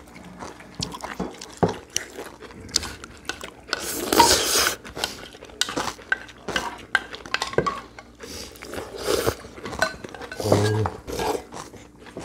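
Spoons and chopsticks clinking and scraping against bowls as several people eat, in quick irregular clicks, with one louder, longer scraping stretch about four seconds in.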